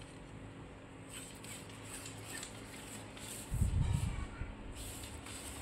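Quiet room with faint handling noise as a fishing rod is slid through the hand. A short low rumbling thump comes about three and a half seconds in.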